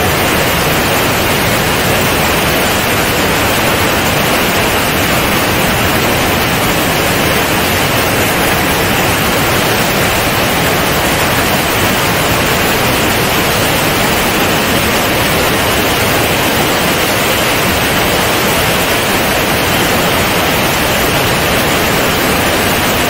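Steady, loud rush of airflow over a camera mounted outside on the wing of a Comco Ikarus C42 ultralight in cruise flight, an even hiss with no distinct engine note.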